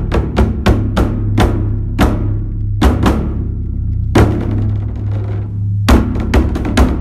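Beopgo, a large Buddhist temple dharma drum, struck with sticks. Quick strikes slow to single beats over a second apart, each leaving a long low ring. After a pause of more than a second, fast strikes start again near the end.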